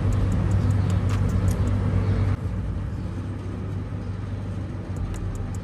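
Steady low rumble of an engine running, with even tones near 100 Hz; it drops in level about two and a half seconds in, with faint regular ticks above it.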